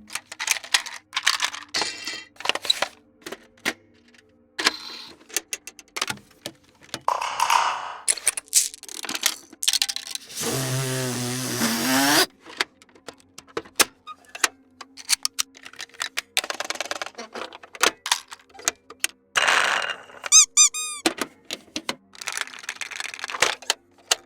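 A quick run of toy sound effects: clicks, knocks, rattles and squeaks one after another. About ten seconds in, a warbling buzzy toy sound lasts nearly two seconds. Near the end comes a short ringing tone that bends in pitch several times.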